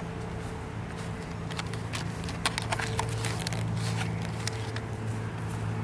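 Footsteps on a concrete walkway, an irregular run of taps through the middle, over a steady low hum.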